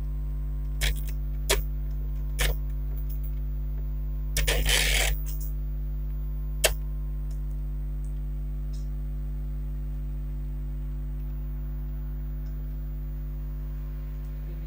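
Sharp plastic clicks and a short clatter from the lid and body of an HP DeskJet 2331 inkjet all-in-one printer being handled, over a steady electrical hum.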